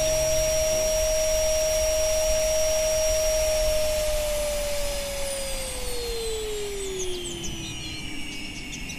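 An electric appliance motor running with a steady whine and rushing noise, then switched off about halfway through and winding down, its pitch falling over a few seconds.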